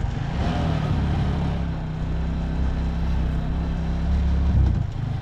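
Motorcycle engine running while the bike is ridden on a rough dirt road, a steady low engine note that eases off near the end.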